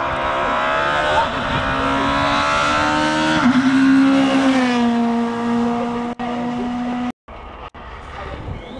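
Škoda Fabia S2000 rally car's engine pulling hard, its note climbing and then dropping in pitch as the car passes close by. The sound cuts off abruptly about seven seconds in, leaving a quieter stretch.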